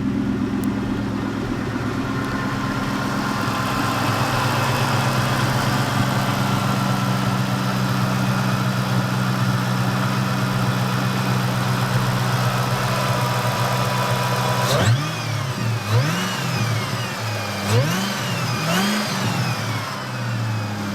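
2003 SVT Cobra's supercharged 4.6-litre V8 idling steadily through its exhaust. About fifteen seconds in it is revved four times in quick blips, each rising and falling in pitch, before settling back to idle.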